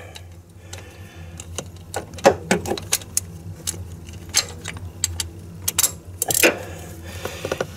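Irregular light metallic clicks and clinks of a ratchet, short extension and 3/4-inch deep-well socket being worked onto an engine coolant temperature sensor.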